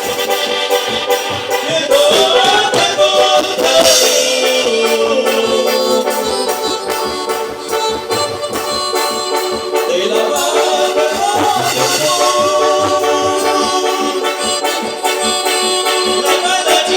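Band music with a steady percussion beat under held melody lines.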